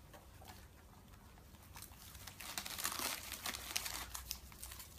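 Thin plastic snack bag crinkling and rustling as a hand rummages in it, starting about two seconds in as a run of small scattered crackles.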